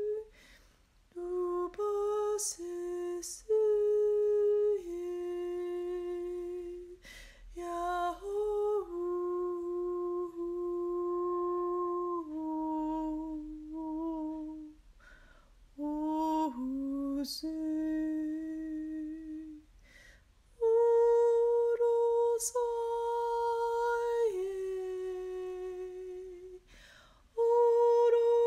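A woman's voice humming or toning long wordless notes in light language, one held note after another at shifting pitches, with short pauses between phrases.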